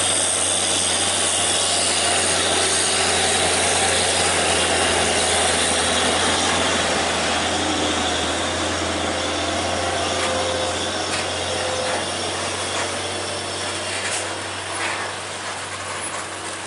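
Heavy semi-trailer truck's diesel engine labouring steadily up a steep climb under a load of steel pipes, heard close as it passes, growing slowly fainter over the last few seconds.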